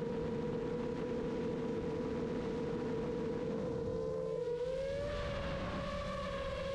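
iFlight Chimera 7 Pro FPV quadcopter's motors and propellers whining steadily in flight, heard through the onboard GoPro with a rush of wind noise. About four and a half seconds in, the whine glides up slightly and holds at a higher pitch as the motors spin faster.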